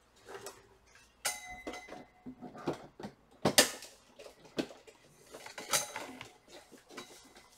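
Power adapter plug and cable being handled and plugged into the soundbar: a series of sharp clicks and knocks. A clink about a second in rings briefly, and the loudest knocks come midway and again about two seconds later.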